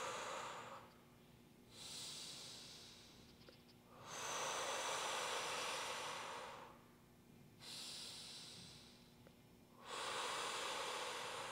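A woman breathing slowly and deeply, each breath an audible airy rush lasting about two to three seconds. Louder breaths alternate with softer ones, one every couple of seconds.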